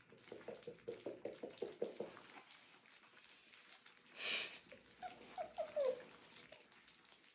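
Three-week-old French bulldog puppies eating: faint wet lapping and smacking, a run of short grunts in the first two seconds, a brief breathy snort about four seconds in, and a few small high whimpers near six seconds.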